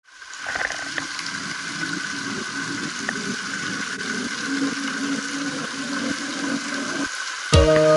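Fountain jets splashing into their basin: a steady rush of falling water. Music comes in suddenly near the end.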